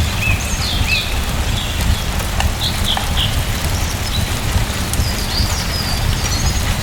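Steady rain with a heavy low rumble underneath, and short bird chirps at intervals over it; a couple of sharp ticks about two and three seconds in.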